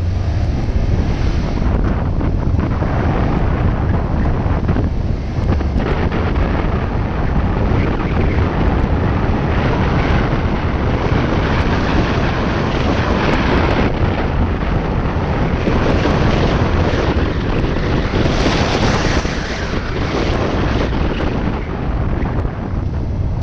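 2016 Subaru WRX STI's turbocharged flat-four driven hard on a dirt rallycross course, heard from a hood-mounted camera: loud wind rushing over the microphone, with the engine and the tyres on loose dirt underneath.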